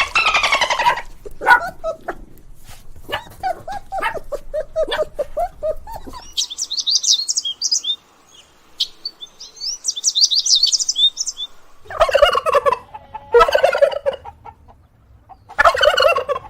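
Turkey gobbling in quick rattling calls, followed by several seconds of rapid high-pitched bird chirping, then more loud fowl calls near the end.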